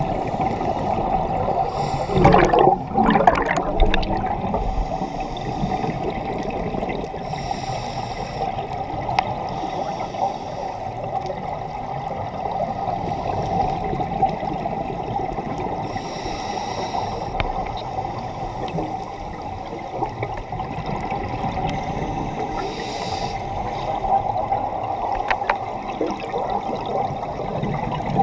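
Scuba divers breathing through regulators underwater, heard through a camera housing: a steady muffled rush with bubbling exhalations, loudest about two to four seconds in, and a short high hiss about every eight seconds.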